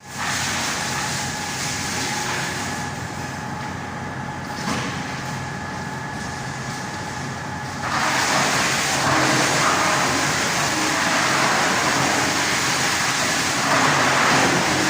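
A 150 kW stump chipper (wood crusher) running with a steady mechanical hum. About eight seconds in it turns louder and rougher and stays that way.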